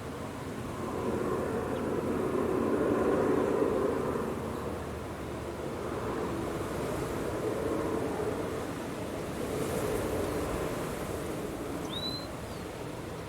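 Strong wind blowing in gusts, a rushing roar that swells a second or two in and again later on. A single short high chirp sounds near the end.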